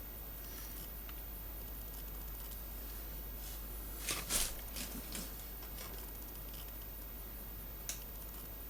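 Plastic model kit parts on their sprues being handled: a short cluster of light clicks and rustles about four seconds in and a single click near the end, over a steady low hiss.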